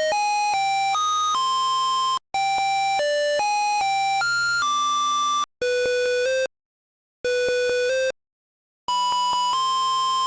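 PC speaker beeping out a one-note-at-a-time melody as buzzy square-wave tones, each note a flat electronic beep stepping to the next. The tune plays in phrases, with two short pauses of silence in the second half, and stops at the end.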